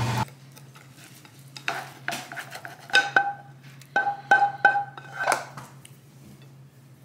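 Scrambled eggs scraped out of a frying pan onto a plate with a spatula: a series of about seven sharp clinks, each with a short ring, as the spatula knocks against the pan and plate, over a low steady hum. It opens with a brief moment of eggs sizzling in the pan that cuts off.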